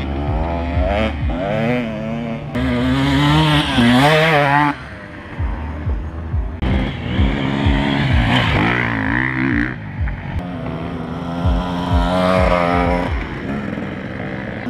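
Enduro dirt bike engines revving up and down as the bikes ride past on a dirt track. The engine sound changes abruptly several times.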